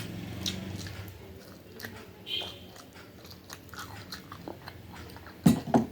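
Mouth eating sounds close to the microphone: chewing with small wet clicks, and a few louder sharp sounds near the end.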